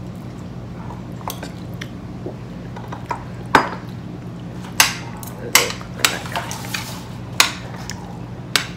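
Tableware clinking and clattering during a meal: a handful of sharp clinks, about six in the second half, over a steady low hum.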